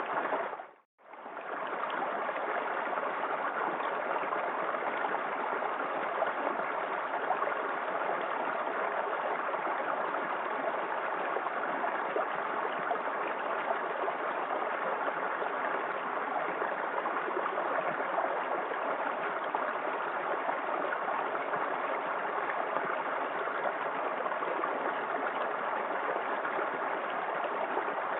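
Small waterfall in a forest creek, water falling and splashing steadily. About a second in the sound dips briefly to near silence and fades back up, like a loop or edit point.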